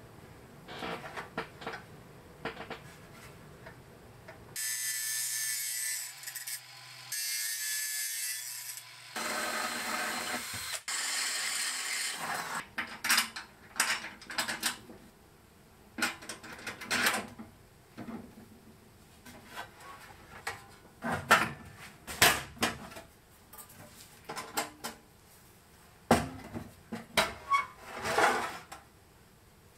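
A power tool runs in three spells of a few seconds each. It is followed by a string of sharp metal clicks and knocks as the latch and hinged lid of a steel jerry can are handled.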